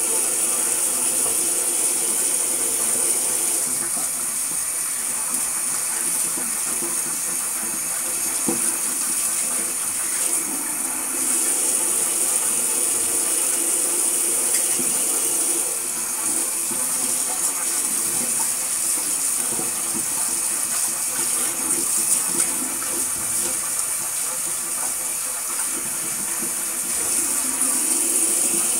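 Water running steadily in a bathroom, an even hiss.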